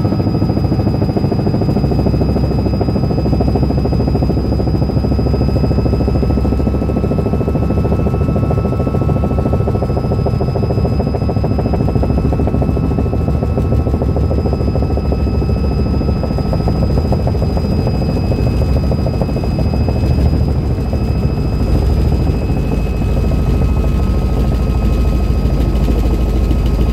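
Light helicopter in flight, heard from inside the cockpit: a steady throb of rotor and engine with a thin, steady high whine over it. The low throb grows stronger in the last few seconds.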